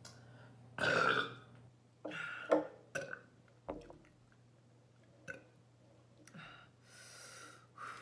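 A woman burping, once about a second in and again around two seconds in, followed by a few short mouth clicks.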